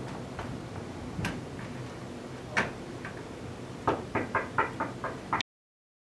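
Knocking on a glass office door: a few separate knocks, then a quick run of about seven knocks at roughly four a second, before the sound cuts off suddenly.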